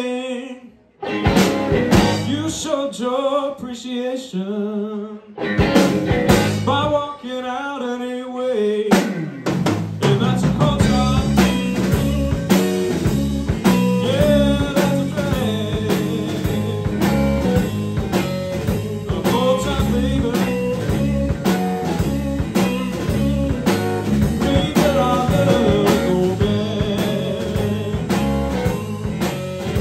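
Live band of electric guitar, bass guitar and drum kit playing a blues tune. For the first nine seconds the guitar plays phrases over sparse band hits with short breaks, then the full band comes in with a steady groove.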